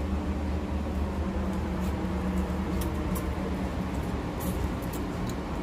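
Steady low hum of an elevator car descending, heard from inside the small cabin, with a few faint light ticks.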